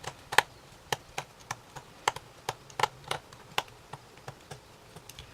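Irregular run of light, sharp clicks and taps, about two to three a second, from a small screwdriver and tiny screws being worked out of a compact camera's body. The clicks thin out toward the end.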